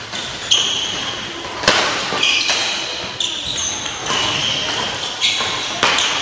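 A badminton rally: sharp racket hits on the shuttlecock about once a second, each ringing briefly in a large hall. Court shoes give short, high squeaks on the floor between the hits.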